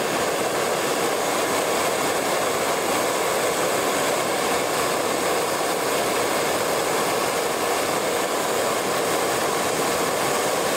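Gas brazing torch burning with a steady, even rushing noise while a fitting is brazed onto copper pipe.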